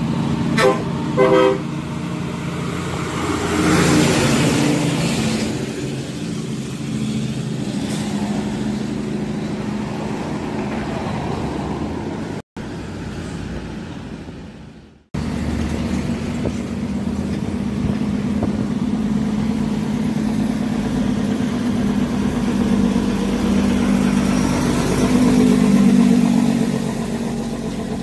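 Heavy diesel trucks passing close by, their engines running loud with a deep rumble. Two short horn toots come about a second in.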